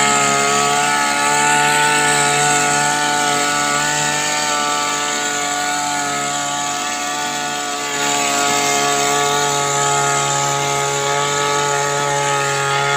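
Small engine of a crop power sprayer running at steady speed, with the hiss of the spray from the boom sprayer gun. It eases slightly in level midway, then picks back up about eight seconds in.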